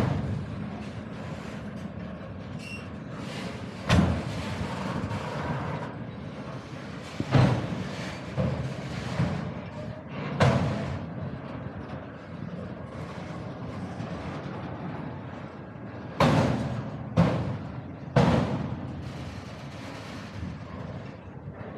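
Freight train cars rolling slowly past with a steady rumble, broken by about seven heavy metallic clanks at uneven intervals, several of them bunched together near the end.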